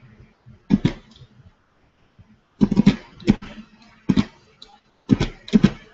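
Irregular clusters of short, sharp clicks and taps from working a computer's input devices while drawing, with quiet gaps between them.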